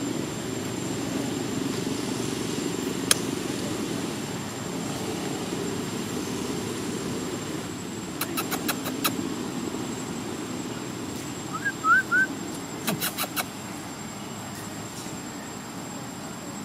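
Steady low rumble, like a running engine, with a faint high steady whine above it. A single sharp click comes early. Quick runs of sharp clicks follow about halfway through and again near 13 seconds, with three short squeaky chirps just before the second run.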